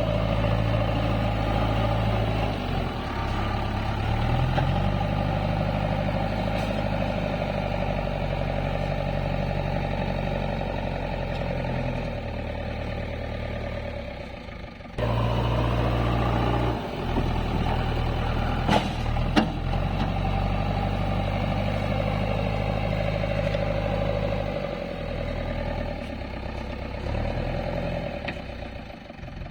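A JCB earthmover's diesel engine running under changing load, its note stepping up and down as the machine works. There are a couple of sharp metallic knocks about two-thirds of the way through.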